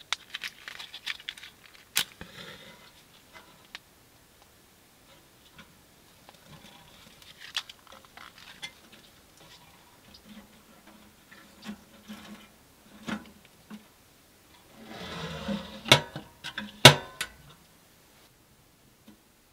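Small clicks, taps and scrapes of matches and kindling being handled at the open firebox of a stainless-steel tent wood stove while the fire is lit. Near the end there is a short rustle, then two sharp metallic clacks as the stove's steel door is swung shut and latched.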